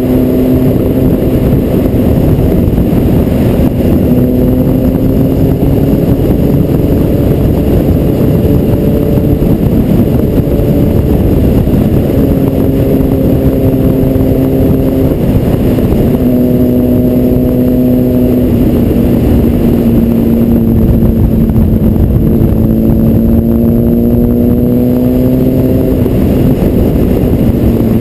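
Honda sportbike's inline-four engine running at road speed, heard from the bike with heavy wind noise over the microphone. The engine note holds steady, then steps and glides up and down a few times as the throttle and gears change.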